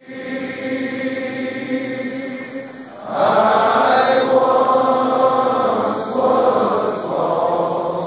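Large crowd of men singing a worship song together, holding long notes that swell louder about three seconds in.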